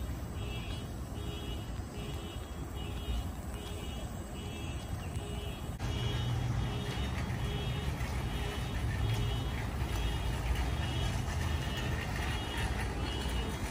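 Parking-lot ambience: a steady low rumble of vehicles, with a repeating high-pitched electronic beep about twice a second like a reversing alarm. About six seconds in the sound changes abruptly and the low rumble grows louder.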